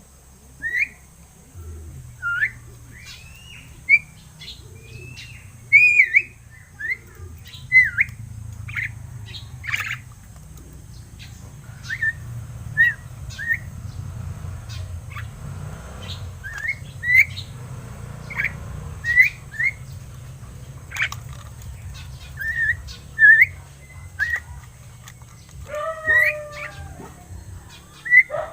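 Pet mynas ("Martinez" birds) giving short whistled calls and squawks, one after another every second or so, over a steady low hum.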